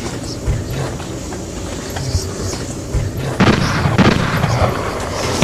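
Soundtrack music with low thumping beats that turns louder and denser, with rapid hard hits, about three and a half seconds in.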